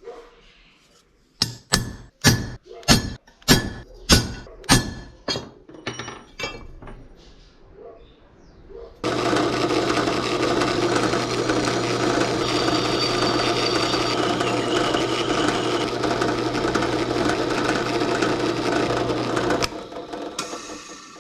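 Hammer blows on steel, about nine ringing strikes a little under a second apart. A few seconds later a motorised shop tool starts and runs steadily for about ten seconds, then cuts off.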